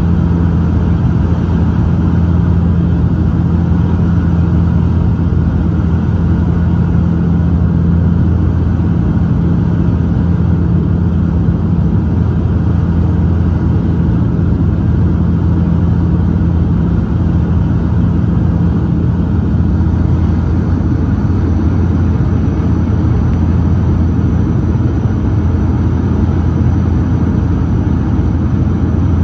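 Steady drone of a Dash 8-400's turboprop engines and propellers heard inside the cabin in flight, a loud, even low hum that doesn't change.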